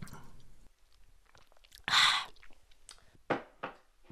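Close-miked drinking sounds from a mug held beside the microphone: a noisy sip about two seconds in, then two short mouth clicks a second later.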